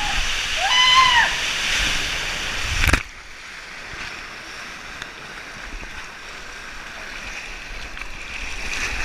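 Water rushing loudly down a water slide, with a person's short rising-and-falling whoop about a second in. The loud rush stops abruptly about three seconds in, leaving a quieter steady water hiss.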